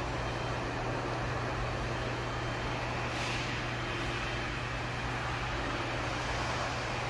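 Steady low hum with an even hiss from running machinery.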